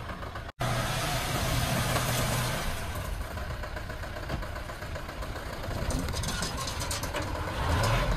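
Hoa Mai dump truck's engine running under load as the hydraulic hoist raises the bed and a load of sand slides out onto the road, with a steady low engine note under a rushing hiss. The sound cuts out for an instant about half a second in.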